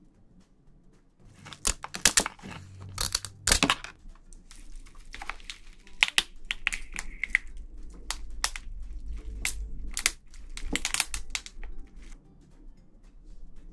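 Raw soy-marinated swimming crab broken apart and squeezed by gloved hands. Its shell and legs give a string of sharp cracks and crackles, mixed with wet squelching of the meat and roe and the crinkle of plastic gloves. It starts about a second and a half in.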